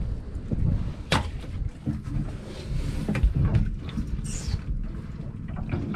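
Wind rumbling on the microphone, with scattered knocks and clatters of gear being handled in a small fishing boat; the sharpest knock comes about a second in.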